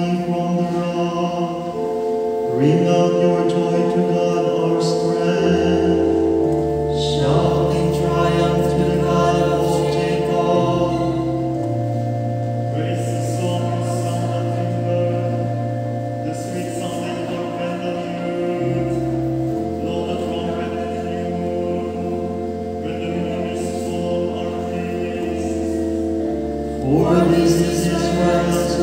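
Choir singing a slow chant over long held low notes.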